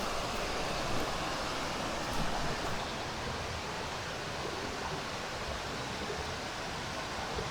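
Steady rush of a mountain stream flowing over rocks, with a few faint clicks in the first few seconds.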